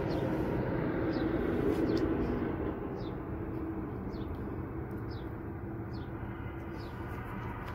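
Steady background rumble and hum, a little louder in the first two seconds, with faint short high chirps repeating less than a second apart from about three seconds in.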